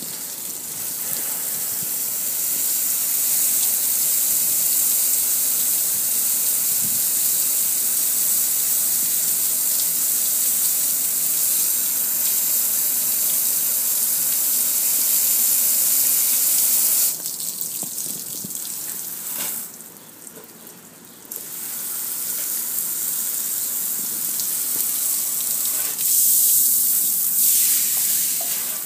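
A jet of water spraying onto a gas grill, hissing steadily with splashing off the metal lid and panel. About two-thirds of the way through the spray eases off and almost stops for a second or two, then starts again.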